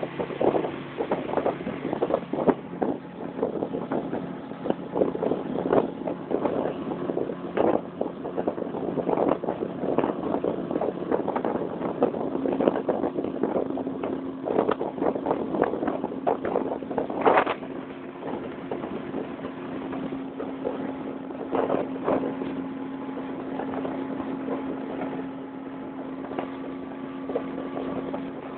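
Motorboat with a 50-horsepower outboard motor running at full throttle, with frequent knocks over the steady engine drone, most of them in the first half.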